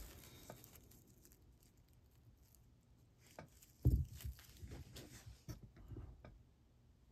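Quiet handling noises as jewelry and its boxes are handled: soft knocks, rubbing and rustles, the loudest a dull thump about four seconds in.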